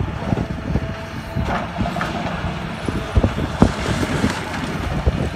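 Heavy dump truck tipping a load of rock and gravel from its raised bed. Its diesel engine runs under the tipping while stones clatter and knock as they slide out onto the pile.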